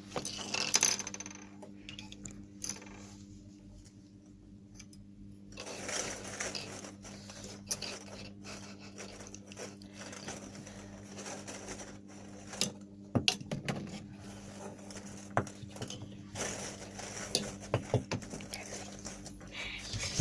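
Scattered clicks and light clattering of small objects being handled, over a low steady electrical hum.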